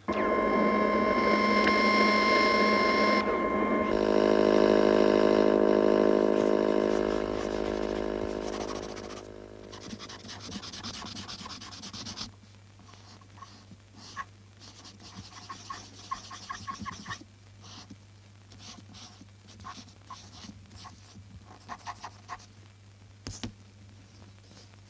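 A loud sustained electronic tone starts abruptly, shifts to a lower, fuller pitch about four seconds in and fades away by about ten seconds. It is followed by quieter, irregular dry scratching and rubbing strokes.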